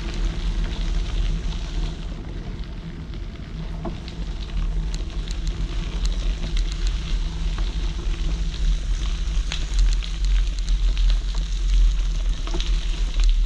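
Bicycle rolling over a crushed-stone trail: the tyres crackle and tick on the gravel over a steady low rumble of ride noise.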